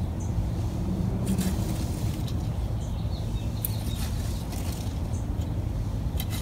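Steel bow rake being dragged through loose, rocky soil, giving short gritty scrapes and clicks as stones knock against the tines, over a steady low rumble.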